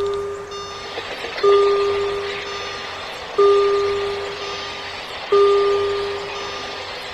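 Railroad crossing warning bell ringing slowly, one ding about every two seconds, each fading out before the next, over a steady rushing noise.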